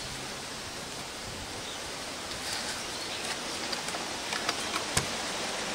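Steady background hiss with a few faint taps and one sharp click about five seconds in, from hands handling cables beside a bicycle frame.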